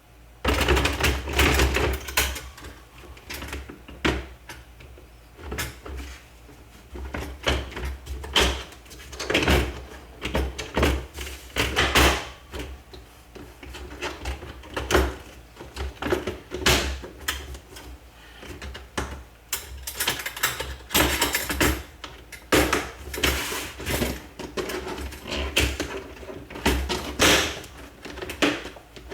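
Hard plastic pet carrier parts being handled and fitted together, the door and top shell knocking and clicking into place. Irregular knocks, clicks and rattles come every second or so throughout, over a faint steady low hum.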